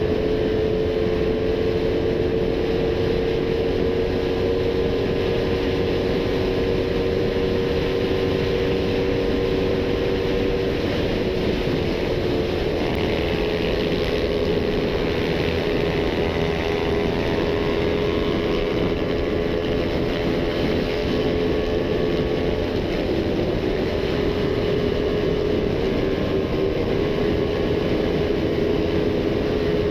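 Tuned Suzuki Raider 150 motorcycle's single-cylinder engine running steadily at speed under a riding load: a continuous high-pitched drone that dips slightly about ten seconds in, then holds, mixed with road and wind rush.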